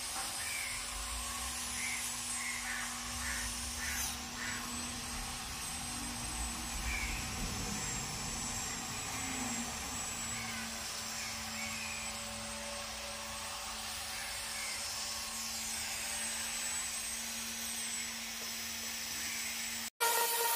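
Steady outdoor background at a building site: a constant low hum and a faint high whine, with scattered short chirps now and then. Near the end it cuts off abruptly and loud electronic music starts.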